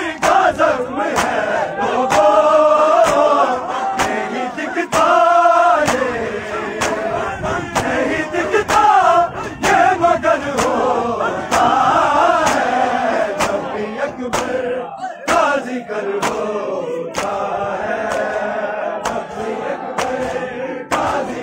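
A group of men chanting a noha, an Urdu lament, in unison. The crowd beats their chests (matam) in time, giving a steady beat of sharp slaps.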